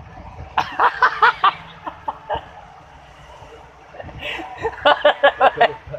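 Laughter in two short bursts, each a quick run of 'ha-ha' pulses: one about a second in and another near the end.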